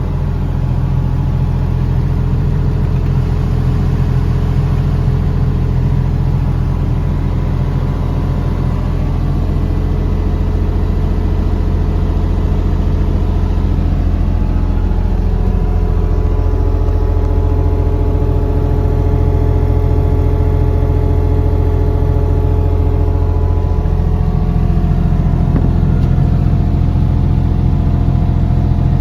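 Diesel engine of a JCB 8030 ZTS mini excavator running steadily, its note changing a little about halfway through and again near the end.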